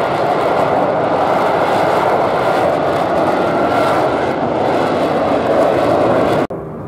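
Loud, steady jet noise from an F-35B Lightning flying in its short-takeoff/vertical-landing configuration, with the lift fan running behind the cockpit and the F135 engine's nozzle swivelled downward. The sound cuts off abruptly near the end.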